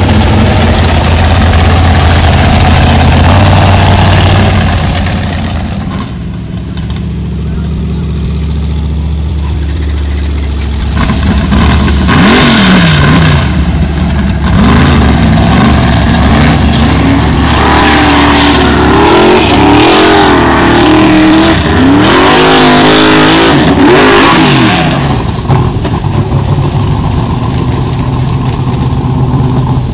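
Formula offroad buggy's V8 engine running loud and steady, then revving hard from about twelve seconds in, its pitch swinging up and down over and over as it climbs the steep gravel hill, and easing off near the end.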